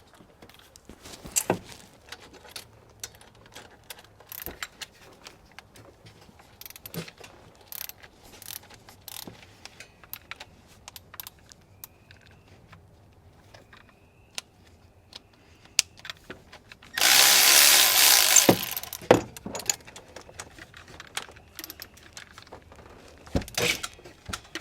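Ratchet and 13 mm socket clicking in irregular runs while loosening the alternator mounting bolts, with metal tool clinks, and a loud rasp for about a second and a half about three quarters of the way through.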